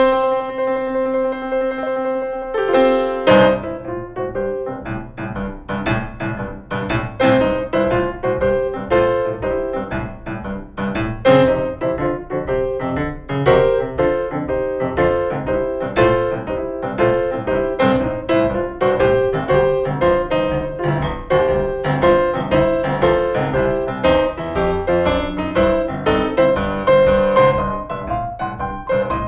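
Piano playing blues/boogie-woogie: a held tone for the first three seconds or so, then a steadily repeating left-hand bass pattern under quick right-hand blues licks.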